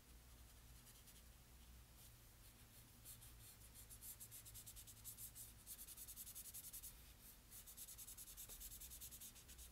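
Faint scratching of a marker shading quickly back and forth on paper, in rapid even strokes that pick up about three seconds in.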